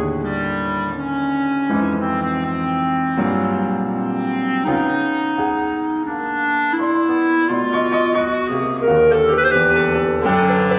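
Six-player chamber ensemble of flute, clarinet, violin, viola, cello and piano playing twelve-tone chamber music. A clarinet line stands out over piano chords and strings, growing a little louder near the end.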